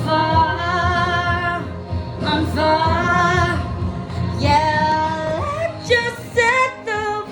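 Pop music with a woman singing long held notes with a wavering vibrato over a steady backing track.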